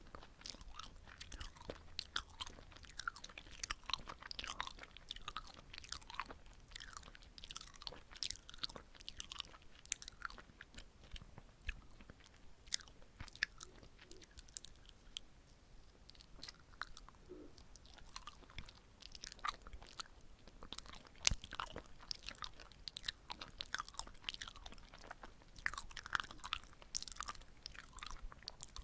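Close-miked chewing of soft, sticky red-bean rice cake (chapssal-tteok): a continuous run of small wet, sticky mouth clicks and smacks.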